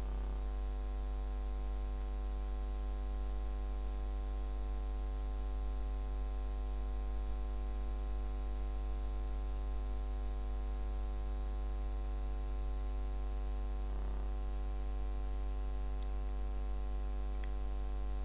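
Steady electrical mains hum: a constant low drone with a stack of even overtones.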